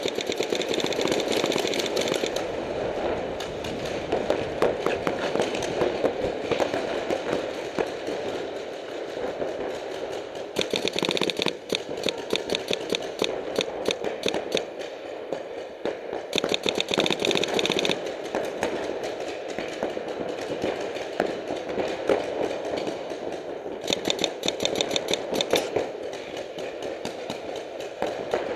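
Paintball markers firing rapid strings of shots, a near-continuous clatter of pops, with louder close bursts of very fast fire lasting a second or two, four times.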